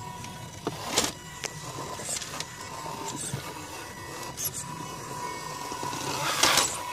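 Axial Wraith RC rock crawler climbing over rocks: its Pro-Line Hyrax tyres and chassis scrape and knock against the stone in short strokes, loudest in a longer scrape near the end, over a steady high whine.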